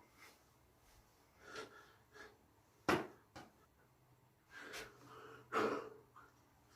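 A person coughing several times in short separate bursts, with breaths between; the sharpest cough comes about three seconds in and another strong one near the end.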